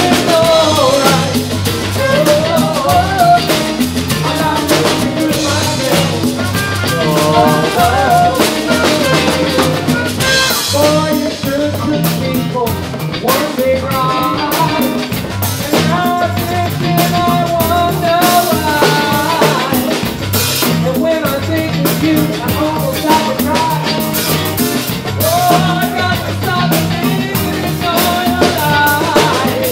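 A live band with a drum kit and a horn section playing loudly and without a break.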